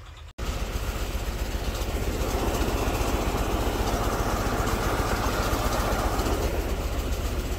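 An old tractor's engine running at idle close by, a steady sound with an even low pulsing beat that cuts in abruptly just after the start.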